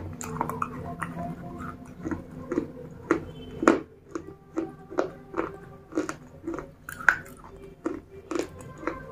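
Close-miked chewing of broken slate pieces coated in thick red paste, with crisp crunches about twice a second.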